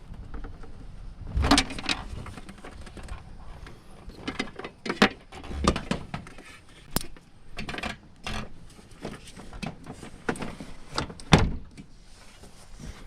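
Irregular clicks, knocks and rattles of hands handling and connecting solar panel wiring, a few of the knocks much louder than the rest.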